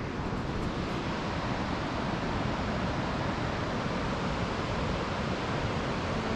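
Wind rushing over the microphone: a steady, even rushing noise with a fluttering low rumble.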